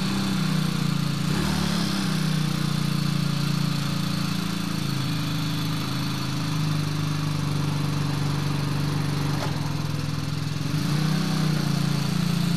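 The small 75 cc four-stroke single of a 1952 Aeromere Capriolo 75 motorcycle idling steadily, its revs rising a little near the end as it starts to move off.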